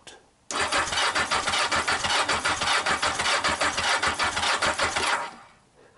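Yamaha XJ900S Diversion's air-cooled inline-four being cranked over on the electric starter, a rapid, even pulsing that cuts in about half a second in and winds down about five seconds in. It is turned over with a spark plug out in its cap to check for spark and to pump the engine oil round before the first start.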